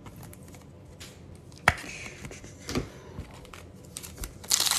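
A trading card slid into a rigid plastic toploader, with light scraping and a sharp tap about a third of the way in. Near the end comes loud crinkling as a foil card pack is torn open.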